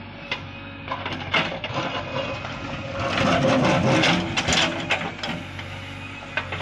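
Heavy machine's diesel engine running steadily, with scattered clanks and a louder, rougher stretch about three seconds in.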